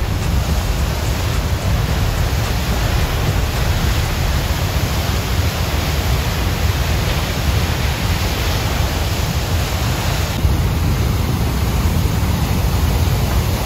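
Loud, steady rushing of whitewater pouring out below a dam.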